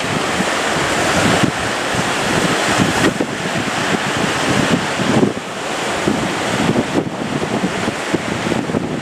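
Strong wind buffeting the microphone over the rushing wash of sea waves, loud and gusty throughout, easing briefly about five seconds in.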